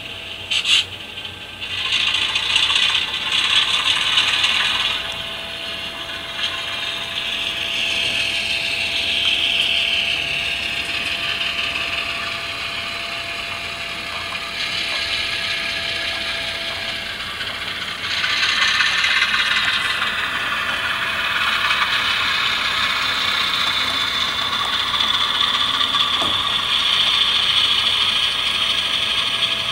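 HO-scale Alco C425 model diesel moving slowly, its newly installed TCS WOW Sound decoder playing diesel engine sound through the model's small speaker, mixed with the whir and clicking of its motor, gears and wheels on the track. The engine sound shifts in pitch and grows louder about 18 seconds in.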